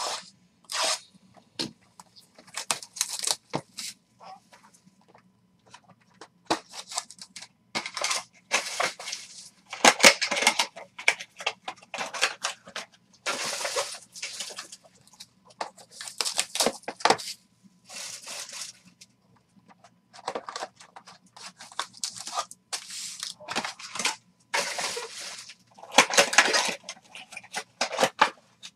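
Plastic shrink wrap and foil card packs from a box of 2022 Topps Inception baseball cards being torn open and crinkled by hand, in irregular rustling bursts of a second or so with short pauses.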